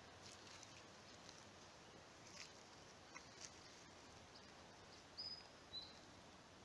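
Near silence of quiet forest ambience, with a few faint clicks and, about five seconds in, a faint high two-note bird call: a short flat note followed by a short falling one.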